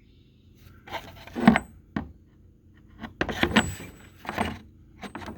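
Steel 3/4-inch-drive impact sockets being handled and set down: several metallic clinks and rattles, with a sharp click about two seconds in and a longer clatter around three to four and a half seconds in.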